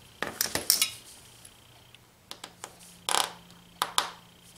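Sharp metal clicks and clinks of small steel screwdriver bits handled in a plastic bit case and fitted to an aluminum precision screwdriver: a quick run of clicks in the first second, then several more about three to four seconds in.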